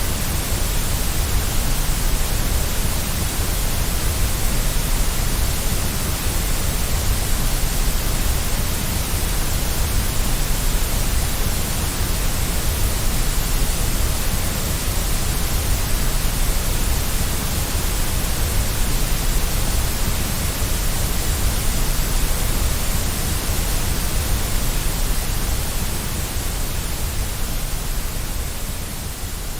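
Steady white noise: an even hiss across all pitches, heavier in the bass, easing slightly in level near the end.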